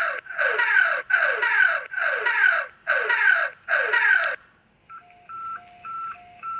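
Electronic emergency alert tones: a quick run of falling pitch sweeps, about two a second, then short beeps alternating between a higher and a lower pitch.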